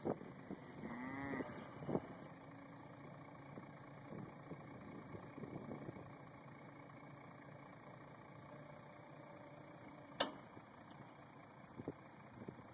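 Pickup truck engine idling faintly while the hydraulic arm of its bale bed lifts a round hay bale onto the flatbed. A short squeal that rises and falls in pitch comes about a second in, and a single sharp click about ten seconds in.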